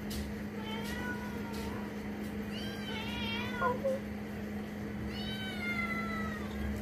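Cats meowing three times, each a long call, the middle one wavering and the last slowly falling in pitch, begging for a treat held out to them.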